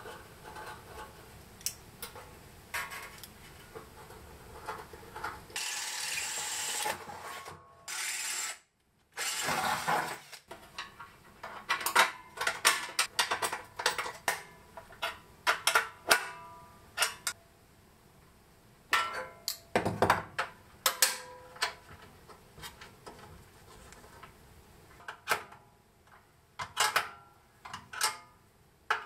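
Hand tools working bolts and nuts on a steel jerry can: many sharp metallic clicks and knocks, with two short stretches of rough, steady noise in the first third.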